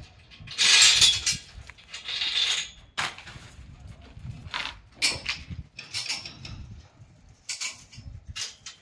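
Irregular bursts of clattering and scraping, with a few sharp knocks among them, the loudest burst about a second in.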